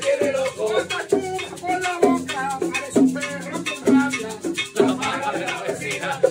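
Live acoustic music: an acoustic guitar strummed and a pair of maracas shaken in a steady rhythm, with men singing along.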